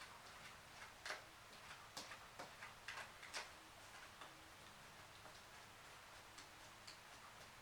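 Faint, irregular clicks and light taps over near-silent room tone, most of them in the first three and a half seconds.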